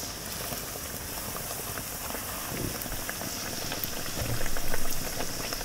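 Youtiao dough stick deep-frying in hot oil: steady bubbling and sizzling with many small crackles.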